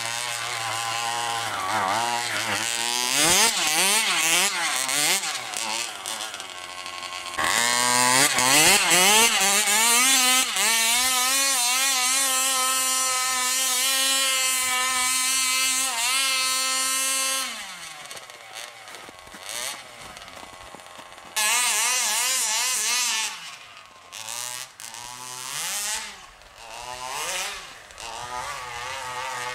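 Small two-stroke 27cc gas engine of a large-scale RC truck revving up and down while driving. Near the middle it is held at a steady high pitch for about ten seconds, then drops back and is blipped several times.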